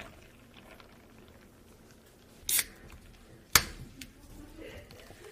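Aluminium soda can being opened at a counter: a short hiss about two and a half seconds in, then a sharp click a second later.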